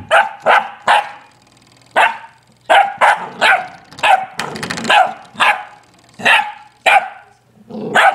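Sheepadoodle puppy barking at a spring doorstop: about a dozen short, sharp barks in quick runs, with a gap of about a second after the first three.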